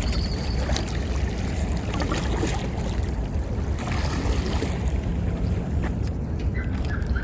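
Wind rumbling on the microphone over small waves lapping against the concrete embankment steps at the water's edge.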